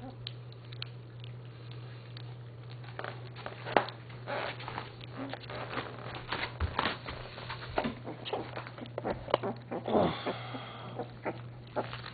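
American Alsatian puppies eating canned meat: irregular chewing and smacking clicks that grow busier after about three seconds, over a steady low hum.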